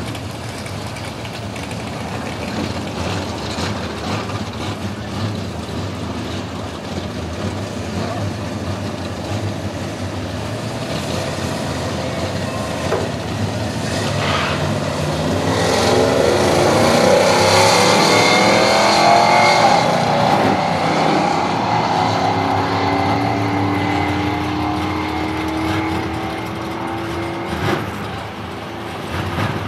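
Carbureted Fox-body Ford Mustang drag car with an automatic transmission idling at the starting line, then launching at full throttle about halfway through; the engine revs climb loudly as it pulls away and it fades as it runs down the strip.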